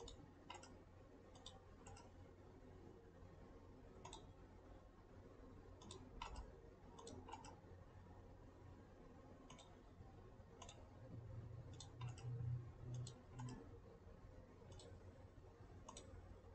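Faint computer mouse clicks, a dozen or so spread out and some in quick pairs, over near-silent room tone, with a brief faint low murmur about two-thirds of the way through.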